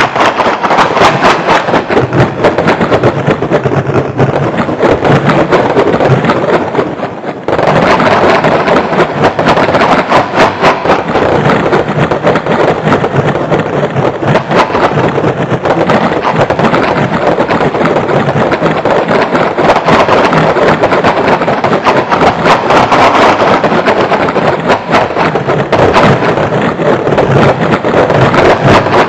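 Electronic computer music: a loud, dense, noisy texture of rapid clicks, briefly thinning out about seven seconds in before resuming.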